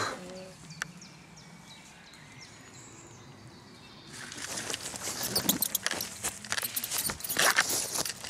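Faint outdoor quiet for about four seconds. Then rapid, irregular rustling and crackling of dry leaves and twigs on the forest floor, growing busier toward the end, as the camera is rushed along just above the ground.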